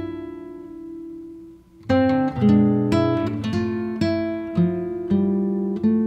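Background music: acoustic guitar playing plucked chords. A held chord fades away over the first two seconds, then a new phrase of plucked notes begins, about two a second.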